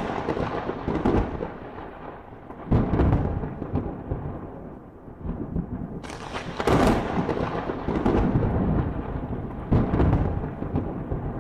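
Rolling thunder: four heavy claps, each swelling suddenly and rumbling away over a few seconds.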